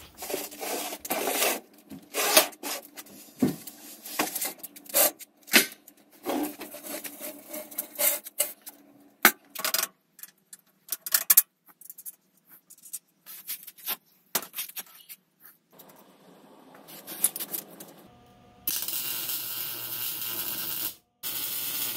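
Tools clanking and tapping on a steel-tube trike frame, a run of sharp metallic knocks that thins out about halfway through. About nineteen seconds in, a MIG welder's arc crackles steadily in two runs with a short break between.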